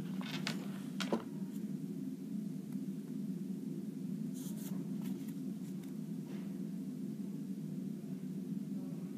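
A steady low hum, with a few short rustles and scrapes of cardboard flashcards being handled and swapped, the clearest about a second in and around four and a half seconds in.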